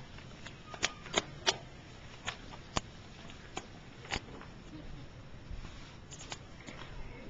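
About a dozen short, sharp clicks and taps at irregular intervals over a faint background hiss.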